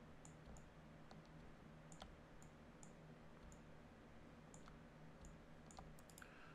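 Faint computer mouse clicks, about a dozen at irregular intervals, over a faint steady low hum.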